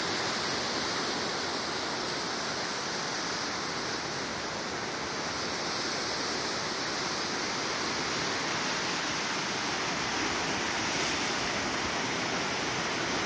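Lake Michigan waves breaking on the shore, a steady rushing wash.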